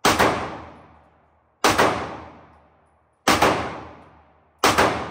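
Four gunshots fired at an even, deliberate pace, about a second and a half apart, each followed by about a second of echo dying away.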